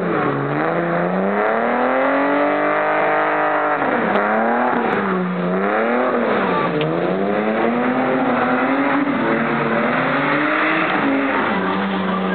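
BMW 2.5-litre straight-six engine revving hard as a car drifts: the pitch climbs over the first two seconds, holds high, drops about four seconds in, then rises and falls several times in quick throttle blips before settling to a steady low note near the end.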